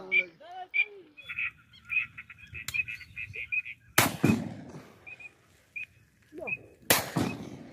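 Two shotgun shots about three seconds apart, each with a ringing echo, fired at a flock of ducks flying overhead. Short, repeated duck calls run through it.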